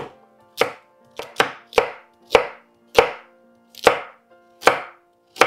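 Chef's knife slicing peeled carrots into rounds on a plastic cutting board: about ten sharp chops, at an uneven pace of roughly two a second, each one the blade cutting through the carrot and knocking the board.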